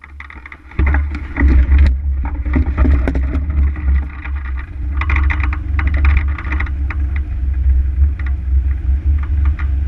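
Wind buffeting the microphone of a hang glider's wing-mounted camera during launch and the first seconds of flight: a heavy, steady rumble that starts suddenly about a second in, with scattered clicks and rattles over it.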